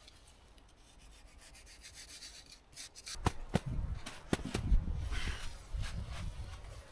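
Rubbing and rustling of gear being handled, quiet at first, with a few sharp knocks about three seconds in followed by a spell of uneven scraping and rustling.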